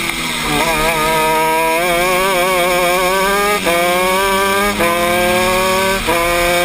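Honda 125cc two-stroke shifter kart engine accelerating hard from a corner. Its pitch climbs through each gear and drops at three quick upshifts, about three and a half, five and six seconds in.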